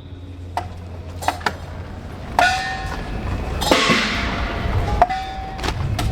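Irregular metallic strikes, a few in all, two of them ringing on briefly with a clear pitched tone like a struck gong or bell, over a steady low rumble.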